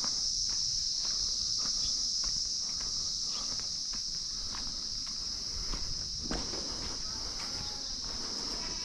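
A steady, high-pitched drone of insects, with footsteps on a paved road about twice a second beneath it.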